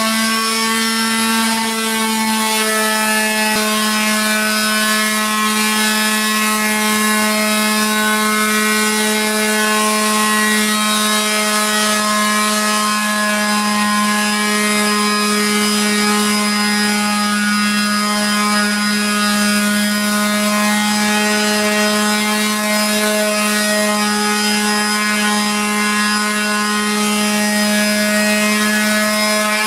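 Electric detail sander with a triangular pad running at a steady pitch, its pad rubbing over dried filler and fibreglass mesh on a wall in light surface sanding.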